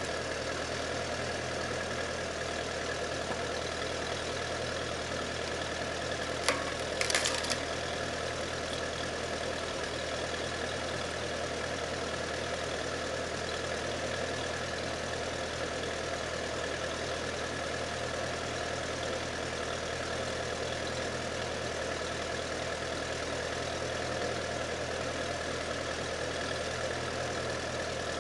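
Ferguson TED20 tractor's four-cylinder engine running steadily, turning a screw-cone log splitter through its PTO shaft. A brief clatter comes about seven seconds in.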